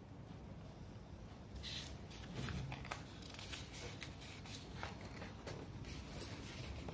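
Textbook pages being turned and handled: faint paper rustles, the clearest about two seconds in, with a few small clicks and shuffles after.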